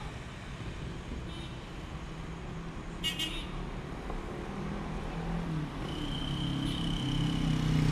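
Road traffic: the engines and tyres of passing cars, one growing louder over the last few seconds as it comes close. A brief high beep sounds about three seconds in, and a thin steady high tone starts near the end.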